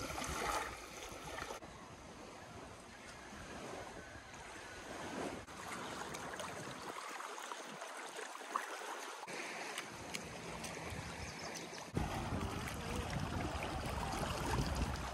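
Small lake waves lapping at a sandy shore, an even wash of water, with wind rumbling on the microphone in parts; the sound changes abruptly a few times as the shots cut.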